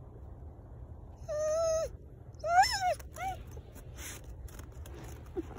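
A dog whining in three short calls: a level whine of about half a second, then a louder one that rises and falls, then a brief third.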